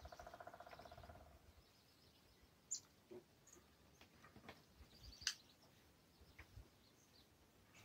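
Woodpecker drumming: a fast roll of taps on hollow wood lasting about a second and a half, followed by a few scattered faint single taps.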